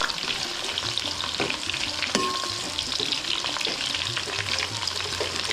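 Onion pieces and green chillies frying in hot oil and ghee: a steady sizzle with many small crackling pops, and the light clicks of stirring in the pot.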